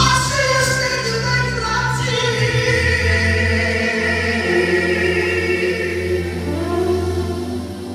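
Live manele music through a PA system: a man singing long, ornamented held notes that glide and waver, over steady instrumental backing.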